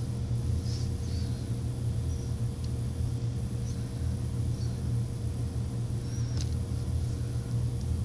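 A steady low rumble, with faint clicks and a few brief high squeaks as plastic dolls are handled and moved about.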